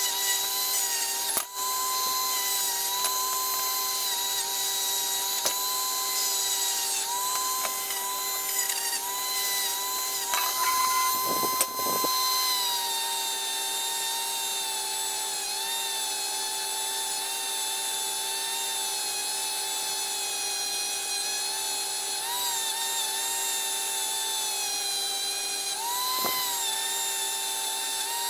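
Small high-speed rotary tool spinning a wire brush wheel, a steady high whine whose pitch dips and wavers as the brush is pressed against metal planer parts to scrub off grime; it grows louder and rougher around the middle.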